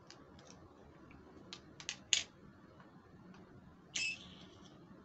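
Light plastic clicks and taps from a small plastic toy hand mirror being handled, several in the first half with the sharpest about two seconds in. About four seconds in comes a brief, louder plastic clatter as the mirror is set down on a hard tabletop.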